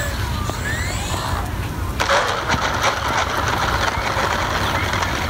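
Electric RC airplane's motor and propeller whirring as it flies low past, over a steady low rumble of wind on the microphone. A broad hiss comes in suddenly about two seconds in.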